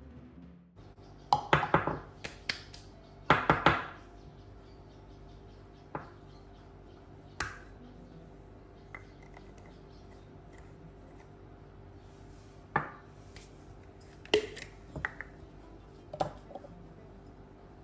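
Metal spoon clinking and scraping against glass spice jars and the grinder jar while ground spice powder is spooned out, with glass jars and lids set down on the counter. Short clinks and taps, the busiest clusters about a second and a half and three and a half seconds in, then scattered single taps and a few more clinks near the end.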